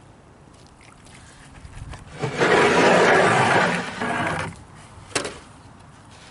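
Loud rough scraping noise lasting about two seconds, then a single sharp knock, as wooden boards are handled and laid down.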